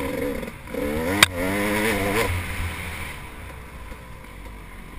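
Dirt bike engine revving hard under throttle, its pitch rising and falling, with a single sharp knock about a second in; after a couple of seconds the engine drops back to a quieter, lower run.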